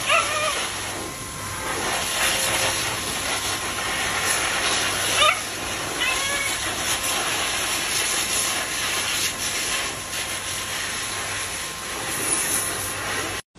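Pet blow dryer running with a steady rushing hiss of air while it dries a corgi puppy, with a few short high whines from the puppy near the start and about five to six seconds in.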